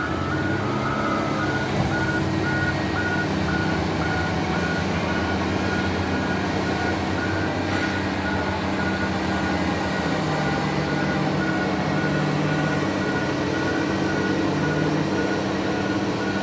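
Heavy diesel mining machinery running steadily, with a warning alarm beeping over and over at an even pace.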